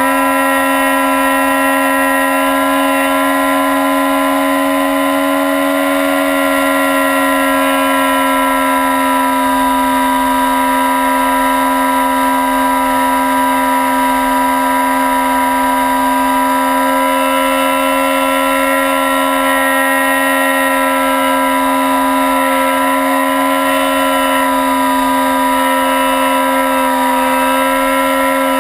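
Model airplane's motor and propeller running at a constant high speed, a steady whining tone heard from a camera mounted on the plane.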